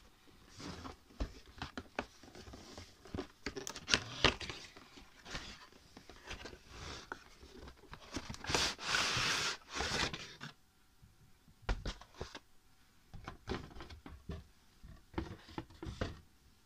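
Cardboard toy box being handled and opened by hand: scattered taps, knocks and rustles. About halfway through there is a longer scraping rustle of cardboard sliding, lasting a couple of seconds.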